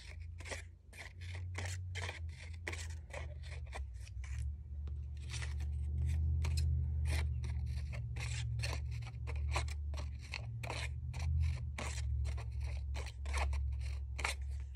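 Scissors snipping short cuts into paper flower petals, a run of quick snips about two or three a second with a brief pause partway through, over a low steady hum.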